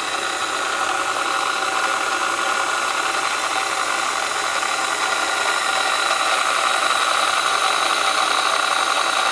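Electric hand mixer's motor running at a steady speed, with a steady whine, as it drives a reduction gearbox and a belt-driven counter shaft.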